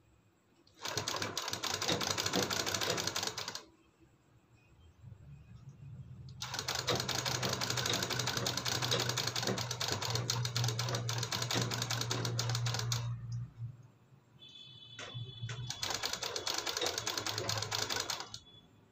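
Sewing machine stitching in three runs: a short one about a second in, a long one of about six seconds in the middle and a shorter one near the end, each a fast, even rattle with a low motor hum under it. The machine is sewing down the folded edge of an interfaced fabric neck piece.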